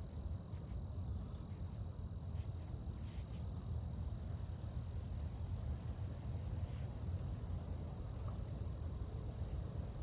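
A cricket trilling steadily on one high note, over a constant low rumble of outdoor background noise.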